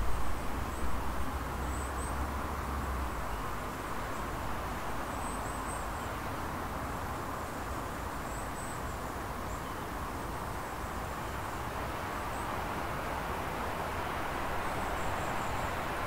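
Outdoor mountainside ambience: a steady hiss of background noise with faint, very high bird chirps now and then. Low wind buffeting on the microphone in the first few seconds.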